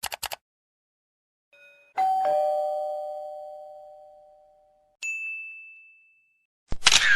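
A two-note "ding-dong" doorbell chime, a higher note then a lower one, ringing out and fading over about three seconds. A short, higher single ding follows, and near the end a loud, noisy burst begins.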